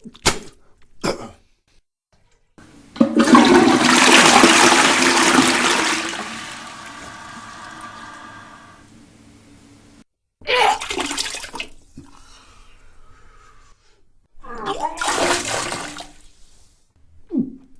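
A toilet flushes: a loud rush of water a few seconds in, fading after about three seconds into a gurgling refill with a faint steady tone, and stopping suddenly. It is followed by two short bursts of retching and vomiting.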